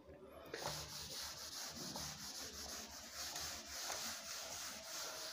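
Faint, steady rubbing hiss that starts about half a second in.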